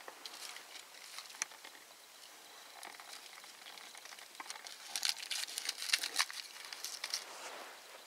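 Dry tinder and kindling crackling and rustling as a burning tinder bundle is pushed into a stack of split kindling to light a campfire. Scattered sharp clicks, then a denser run of crackling about five to six seconds in.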